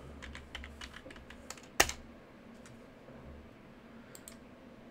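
Computer keyboard typing: a quick run of keystrokes in the first two seconds, the loudest about two seconds in, then a couple of faint clicks near the end.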